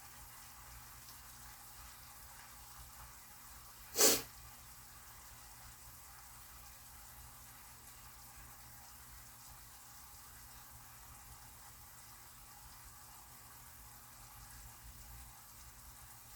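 Chicken pieces sizzling faintly in a frying pan that is not quite hot enough, so the meat's liquid is still frying off. A single short, loud burst of noise cuts in about four seconds in.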